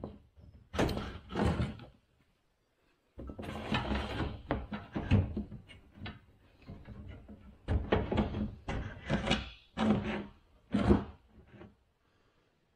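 Irregular knocks, thumps and scraping sounds in three bursts, separated by short pauses of about a second.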